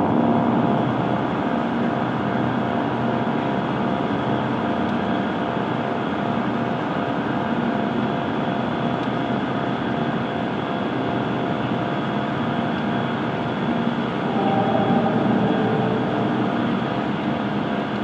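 A steady droning rumble with several held tones on top, swelling a little about fourteen seconds in.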